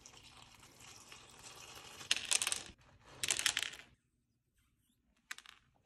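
Milk pouring from a plastic jug into a glass bowl of small chocolate pieces: a steady splashing pour that grows louder as the bowl fills. It is followed by two short, louder rattling bursts, about two and three seconds in.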